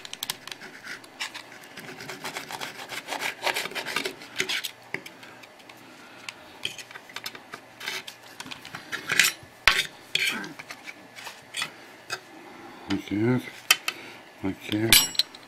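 Table knife sawing through a microwaved burrito's tortilla, the blade scraping against a paper plate, with a fork clicking now and then: irregular rasping strokes and light clicks.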